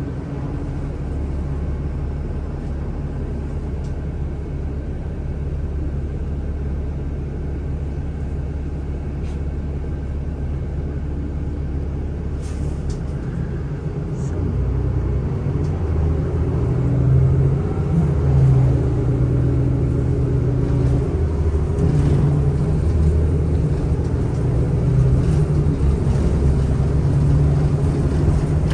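City bus ride heard from inside the cabin: steady low engine and road rumble that gets a little louder and changes pitch about halfway through, as the bus picks up speed.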